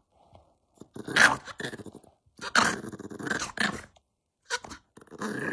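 A dog growling and barking in several short bouts with brief pauses between them.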